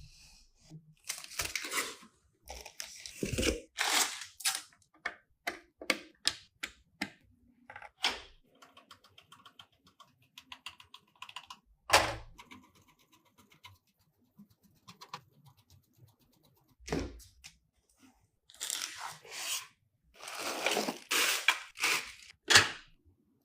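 Hands handling computer parts during a PC build: irregular clicks and knocks of hardware, with one sharp knock about halfway. Bursts of rustling and crinkling come near the start and again near the end.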